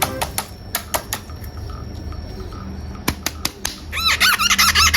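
A few sharp clicks and taps, like a plastic toy being handled. Then, from about four seconds in, a fast even run of high chirps, about eight a second.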